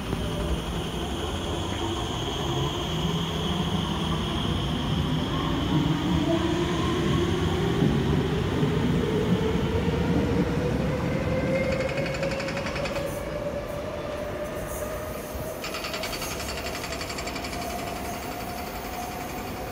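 SMRT Alstom R151 electric train pulling out of a station platform, its traction motors whining steadily higher in pitch as it gathers speed over wheel-on-rail rumble.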